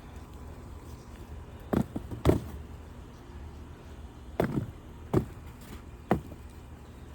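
Five short thuds at uneven intervals over a low, steady background, from digging and handling sweet potatoes by hand.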